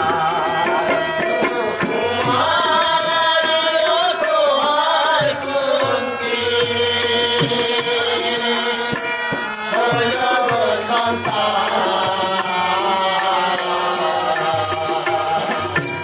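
Bengali folk song (bolan gan): men singing long, chant-like held notes together, over a steady beat of a hand-played drum and jingling percussion.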